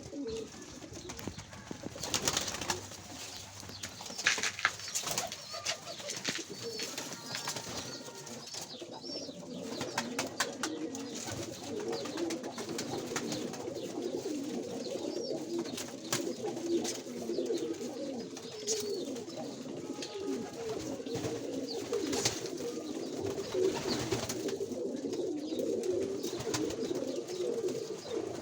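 A flock of domestic pigeons cooing together, a dense, continuous low warble, with sharp clicks and knocks now and then.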